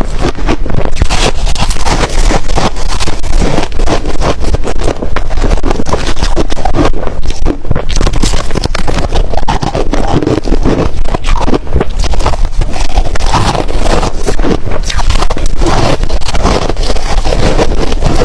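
Ice being chewed: loud, continuous crunching made of many sharp cracks packed closely together.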